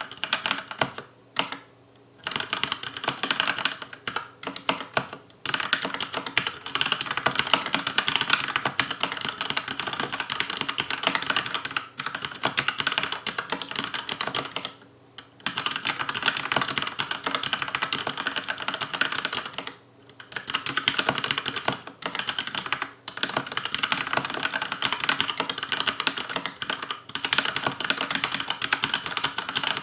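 Fast touch-typing on a Logicool K835 tenkeyless mechanical keyboard with TTC linear red switches and an aluminium top plate: a rapid, clattering stream of keystrokes, broken by a few short pauses, the longest about 15 seconds in.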